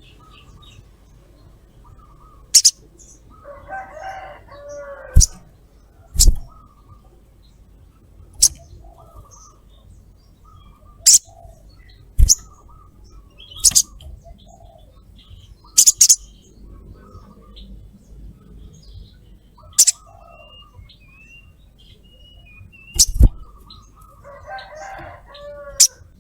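Olive-backed sunbird giving sharp, very short high 'cret' call notes at irregular intervals, about a dozen, with soft short chirps between them. Twice, about four seconds in and near the end, comes a lower, rougher call lasting about a second.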